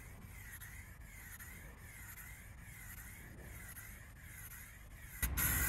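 A rhythmic, high-pitched animal call pulsing about twice a second in the background. About five seconds in, an aerosol can of Rust-Oleum Hammered spray paint starts spraying with a loud, steady hiss.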